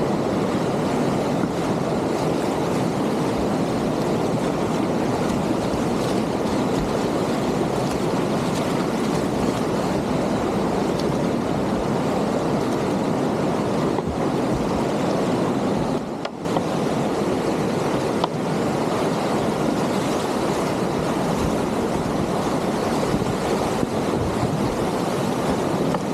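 Whitewater rapids of a river in high flow, a continuous rushing of churning water. It dips briefly about two-thirds of the way through, then comes straight back.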